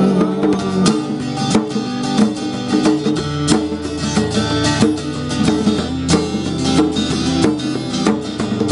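Acoustic guitar playing an instrumental break of a country song: picked single notes with sharp attacks over strummed chords, with no singing.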